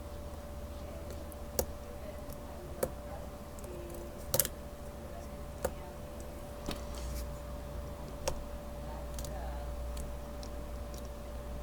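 Lock pick and pins clicking in the keyway of a Master Lock Pro Series 6321 padlock as it is picked under light tension. About six sharp, scattered clicks, one of them doubled, over a faint steady hum.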